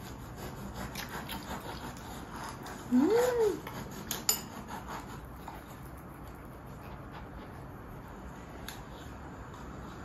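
Knife and fork clinking and scraping on a plate while cheesy French toast is cut, with one sharp clink about four seconds in. About three seconds in comes a short, louder sound that rises and then falls in pitch.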